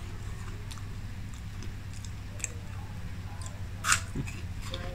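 A person chewing and biting food, with small mouth clicks. A sharper click comes about four seconds in as a piece goes into the mouth, over a steady low hum.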